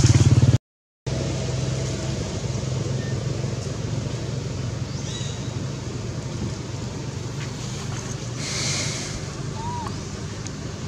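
Steady outdoor background noise, a low rumble with hiss, after a brief dropout to silence just after the start. A short chirp comes near the end.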